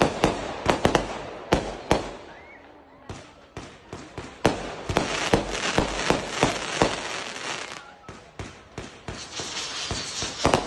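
Ground-launched fireworks firing in quick volleys of sharp bangs and crackles. There is a short lull about two to three seconds in, then denser runs of shots.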